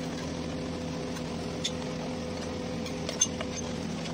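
A steady low mechanical hum runs throughout. Over it come a few light clicks of a metal pizza server against the pizza pan, the loudest about three seconds in.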